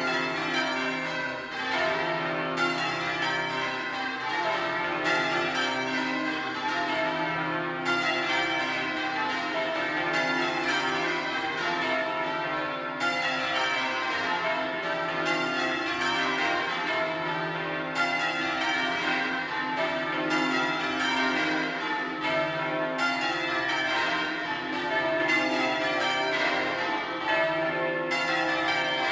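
Change ringing on the Bow Bells, a ring of twelve church bells cast by Mears and Stainbank in 1956 with a tenor in C. The bells strike one after another in an unbroken stream, the sound brightening roughly every five seconds.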